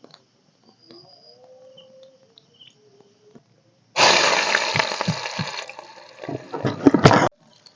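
Water pouring and splashing loudly, starting suddenly about four seconds in and cutting off abruptly about three seconds later, with a few knocks near the end.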